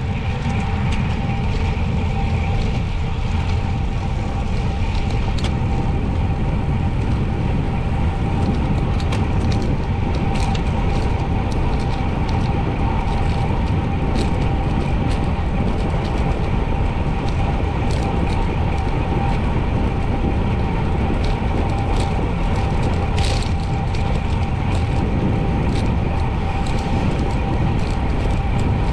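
Wind rushing over an action camera's microphone while cycling at speed: a steady low rumble, with a faint steady whine and scattered light ticks from the road and bike.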